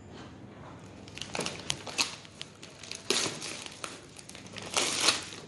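Paper mailer bag being torn and crumpled open by hand: crackling, rustling bursts, loudest near the end.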